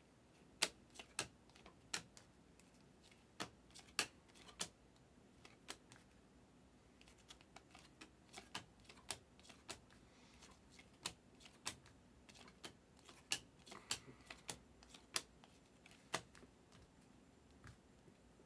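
Stack of glossy Optic basketball trading cards flipped through by hand, each card giving a sharp click as it is slid off the front, at an irregular pace of about one or two a second with short pauses.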